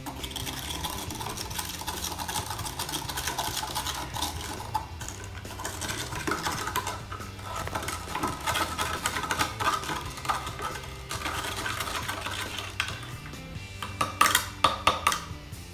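A stirring stick clicking and scraping against the inside of a test tube while baking soda is stirred into water until it dissolves, with a few louder taps near the end. Background music plays underneath.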